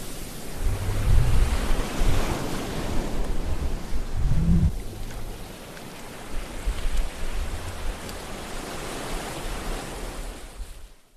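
Ocean surf and wind noise, with gusts of wind rumbling on the microphone about a second in and again around four and a half seconds. The sound cuts off suddenly at the very end.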